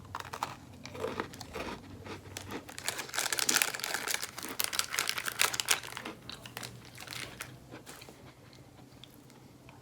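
A plastic snack wrapper crinkling and rustling as it is handled. The crackling is densest and loudest from about three to six seconds in, then thins out.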